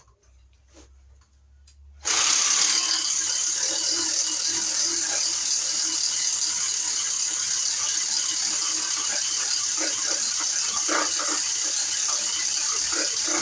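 A power tool running steadily, starting suddenly about two seconds in, with a rattling, clicking mechanical noise throughout.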